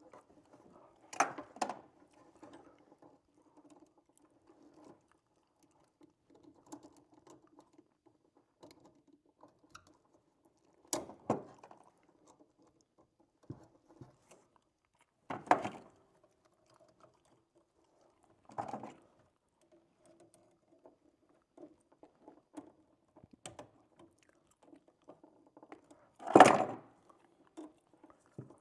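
Scattered clicks and knocks of hands and tools handling wires and parts while wiring an electrical outlet, with a handful of sharper knocks, the loudest near the end, over a faint low hum.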